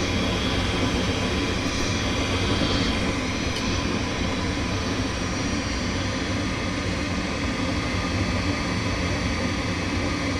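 Gas furnace's draft inducer motor running steadily with a low hum during the ignition sequence, while the igniter heats up and before the burner lights.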